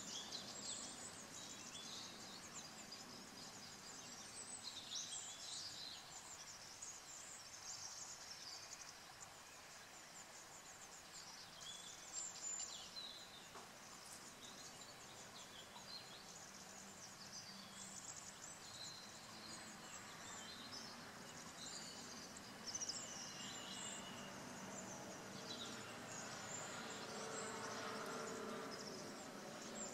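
Quiet outdoor ambience: small birds chirping on and off throughout, with a faint steady hum coming up in the last few seconds.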